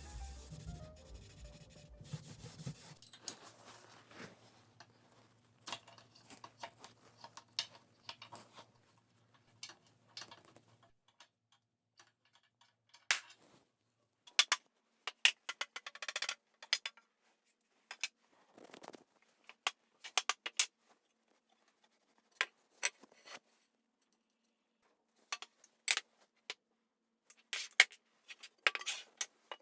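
Background music fading out in the first few seconds, then scattered handling sounds: brief rubs and scrapes and sharp light clicks and knocks, spread irregularly with quiet gaps between them.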